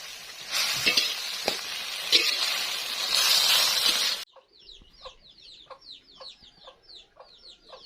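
Food sizzling in a frying pan while it is stirred, with a few clicks of the utensil, likely a bitter gourd stir-fry. It cuts off abruptly about four seconds in, giving way to chickens calling: many short, rapid falling calls overlapping, with clucks.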